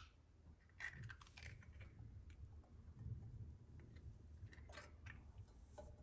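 Faint small clicks of eggshell halves as an egg is separated by hand, the yolk tipped from shell to shell over a stainless steel bowl, with a low hum underneath.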